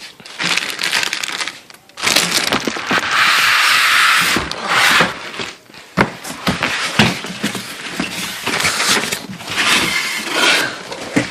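Packaging being handled as a PC case is unpacked: a long burst of loud rustling and scraping, followed by scattered knocks and shorter rustles.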